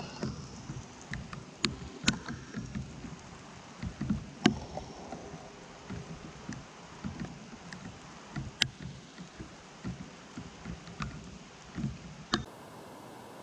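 Wind and rain on the camera's microphone during a heavy shower: irregular low buffeting rumbles with sharp ticks of raindrops striking the camera. Near the end it cuts to a steady hiss.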